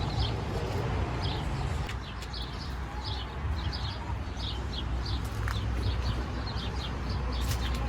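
Small birds chirping repeatedly in short, quick notes, several a second, over a steady low rumble.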